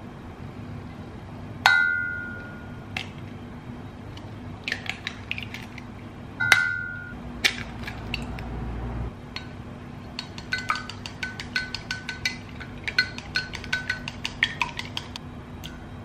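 Eggs tapped hard on the rim of a glass measuring jug, twice, each knock leaving the glass briefly ringing. Then wooden chopsticks beat the eggs, clinking quickly and unevenly against the glass for several seconds.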